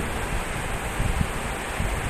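Rough sea surf during a typhoon: a steady rush of breaking waves, with irregular low gusts of wind buffeting the microphone.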